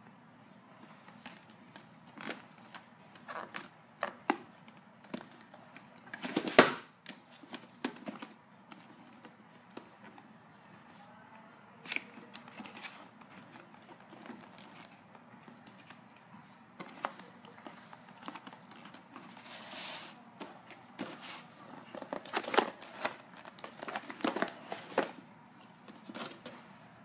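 Cardboard camera packaging being handled and opened: the box sleeve sliding off, irregular rustling and scraping, and light knocks and clicks, the loudest a knock about six and a half seconds in.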